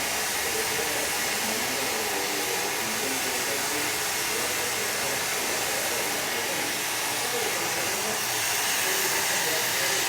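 A steady blowing, rushing hiss, like a blower or heat gun running, holding the same level throughout.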